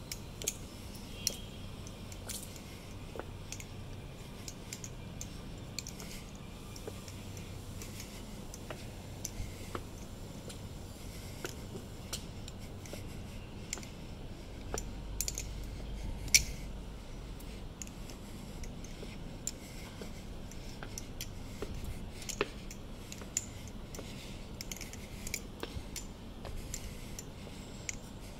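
Balisong (butterfly knife) being flipped: irregular metallic clicks and clacks as the swinging handles knock together and against the blade, with one sharp, louder clack about halfway through.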